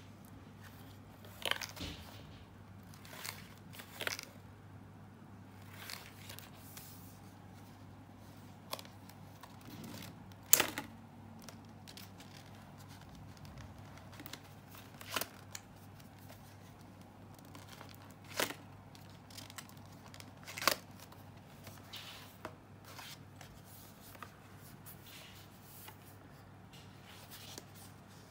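Stiff card and paper pop-up pieces of a pop-up book being handled: scattered rustles and short sharp snaps of card as flaps are lifted and pages moved, the loudest about ten seconds in, over a low steady hum.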